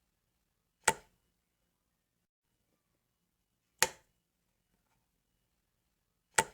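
A wall light switch flicked three times, each flick a single sharp click with a short decay and silence between.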